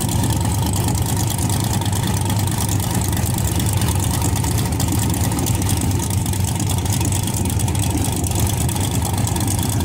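Drag car's engine idling steadily, an even rumble with no revving.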